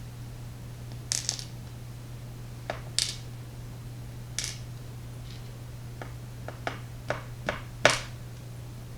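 Small metal lock parts clicking and tapping as pins are dumped out of a pin-tumbler lock cylinder being taken apart: about ten scattered clicks, the loudest near the end, over a steady low hum.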